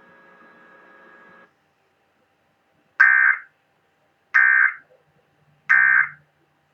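Three short bursts of Emergency Alert System (SAME) digital data tones from a NOAA weather radio, each about half a second long and about a second and a half apart: the end-of-message code sent three times to close the test tornado warning. Before them a faint hum stops about a second and a half in.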